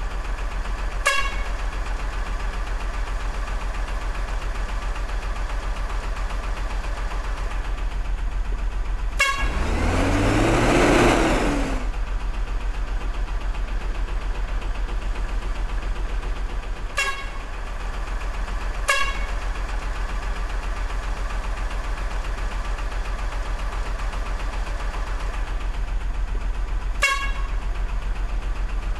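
RC dump truck tipping its gravel load: from about 9 to 12 seconds in, gravel slides out of the tipper bed with a rushing pour while a small motor whine rises and falls in pitch. A steady low hum runs under it, broken by five short horn toots.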